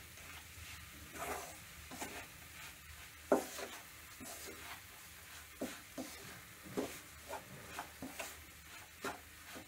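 Wooden spatula stirring and scraping moong dal as it is roasted in ghee in a non-stick kadai, in irregular strokes, with a sharper scrape or knock against the pan about a third of the way in.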